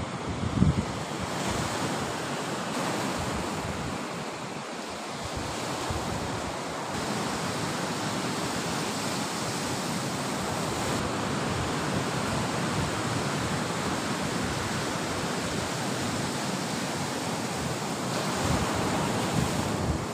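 Sea surf washing steadily onto the shore, with wind on the microphone that surges briefly about a second in.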